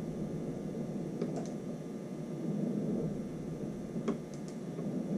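A few light metal clicks from a torque wrench and socket as the nut on a Cessna alternator's drive gear is tightened toward 180, over a steady room hum; the sharpest click comes about four seconds in.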